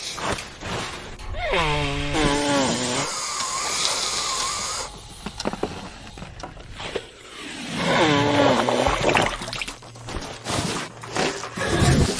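Cartoon character vocalising: two drawn-out, wavering cries that fall in pitch, with a hissing noise between them and scattered clicks.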